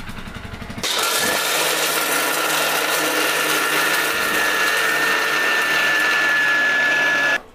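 Sathi Dynamix 1000 mixer-grinder running, grinding roasted peanuts and salt in its steel jar. It starts about a second in, runs steadily with a thin high whine, and cuts off suddenly near the end.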